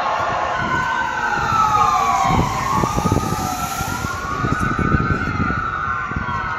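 Ambulance siren wailing, its pitch slowly rising and falling.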